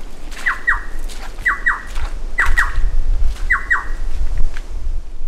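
Low wind rumble on the microphone, with four pairs of short squeaky notes, each falling sharply in pitch, coming about once a second.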